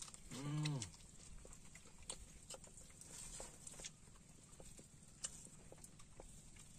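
A person eating grilled fish by hand: a short hummed "mmm" about half a second in, then quiet chewing with faint lip smacks and small clicks.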